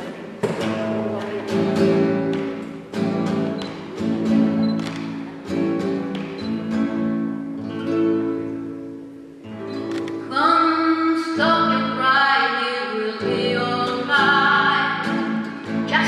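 A woman sings, accompanied by strummed chords on a nylon-string classical guitar. About ten seconds in, her voice grows louder and brighter.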